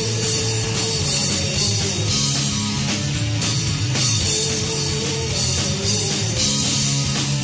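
Live rock band of electric guitar, electric bass and drum kit playing a song at full volume.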